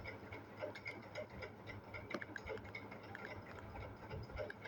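Symphony L46 mobile phone playing one of its built-in ringtones through its small speaker: a quick, ticking run of short electronic blips.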